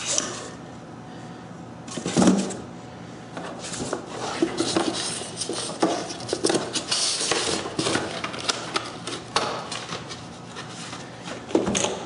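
Handling noise of a dial indicator being packed into its cardboard box: irregular rustling of paper and cardboard with small clicks. A sharp knock about two seconds in and another near the end as the box is set down.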